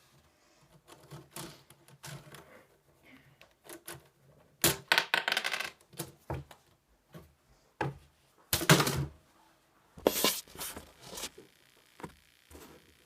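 Lego plastic parts clicking and rattling as the crossbow-pistol is handled, with a series of sharp clicks and three louder rattling bursts.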